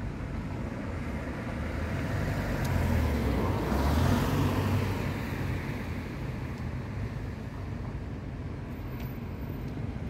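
Road traffic: a car passes by, growing louder to a peak about four seconds in and then fading back to a steady low rumble.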